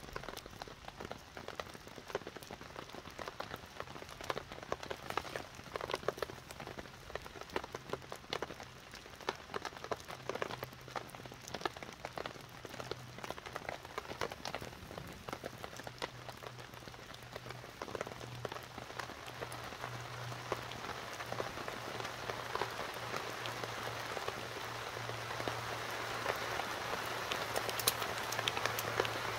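Rain falling on a tarp shelter: separate drops hitting at first, building to a denser, louder downpour over the last ten seconds or so.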